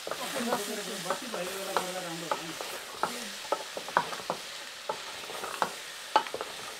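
A ladle stirring diced food in a stainless steel pot over a wood fire, knocking and scraping irregularly against the metal, over a steady sizzle from the pot.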